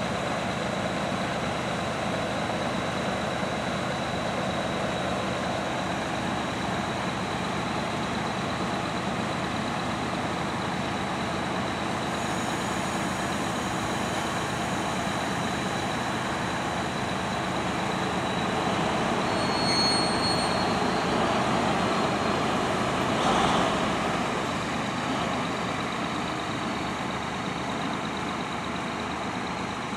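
Two Finnish Dv12 diesel-hydraulic locomotives coupled together, their engines running with a steady drone as they move off along the yard tracks. A brief burst of noise about two-thirds of the way through.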